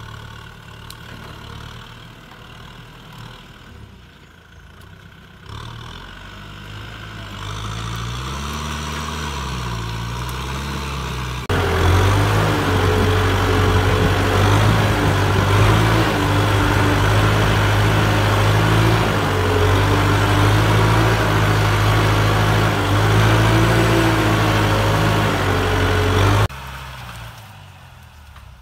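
Kubota farm tractor's diesel engine running while it works brush-covered ground. Its engine speed rises and falls a few seconds in, then it is much louder and steady, heard close beside the engine, for most of the rest, and drops back near the end.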